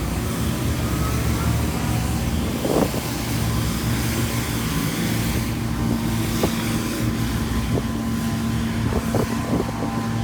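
Steady low mechanical hum, like an engine running, with wind on the microphone and a few faint knocks.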